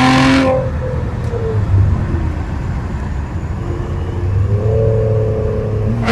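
Lexus engine and loud exhaust coming off the throttle from about 60 mph and downshifting: the loud rush cuts off about half a second in and the revs fall, then the pitch rises again about four seconds in as the lower gear takes hold and stays there.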